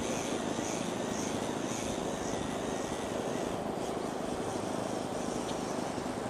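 Model aircraft flying at a distance: a faint high motor or propeller whine that pulses and fades out about halfway through, over a steady rushing noise.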